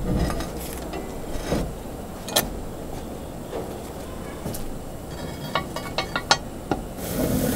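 Metal clinks and clanks from handling a cast-iron Dutch oven: its wire bail handle is laid down against the pot, then a metal lid lifter is hooked onto the lid handle. Single sharp clicks come every second or so, with a quick run of them about six seconds in and a louder scraping stretch near the end.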